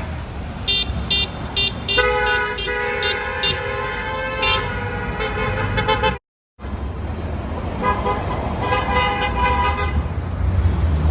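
Car horns honking at passing traffic in response to a roadside honk-and-wave. It starts with a string of short toots, then a long held honk with several horns sounding together, and after a brief dropout in the audio more horn beeps come in quick succession, over steady traffic noise.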